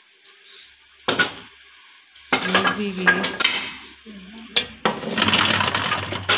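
Metal kitchenware clinking and clattering around an iron tawa and steel dishes: sharp knocks about a second in and again past the middle, then a longer run of clatter near the end.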